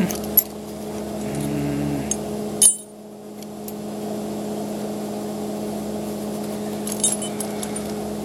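Steady low hum of running machinery, with a few light metallic clinks as a stick-welding electrode holder and rod are handled; the hum drops out briefly after a sharp click about three seconds in.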